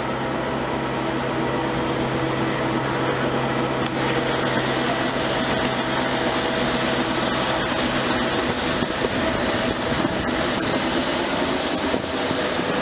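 NOHAB MY diesel-electric locomotive hauling a train away from a station, heard from an open carriage window: a steady engine drone with a hum of tones, and rolling and wind noise growing from about 4 seconds in as the train gathers speed.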